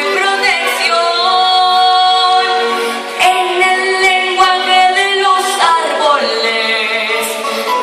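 A young girl's solo singing voice holding long, wordless notes that move from pitch to pitch every second or two.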